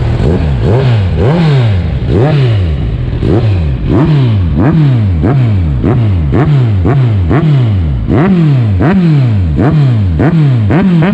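Kawasaki Z1000 inline-four engine revved in quick repeated throttle blips through an Akrapovic carbon slip-on muffler, each blip a sharp rise and fall in pitch, about two a second.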